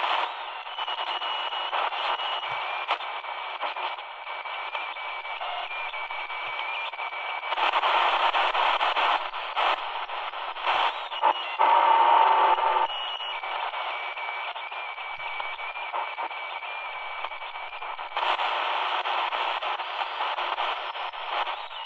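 An XHDATA D-219 portable radio's small speaker giving out hissing static as it is tuned across the FM band, with a thin whistle running through it. Louder stretches come and go as signals briefly come through.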